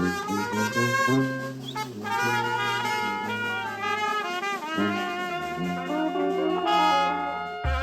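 Brass band music: trumpets and trombones play a melody over a low bass line that changes note every second or so.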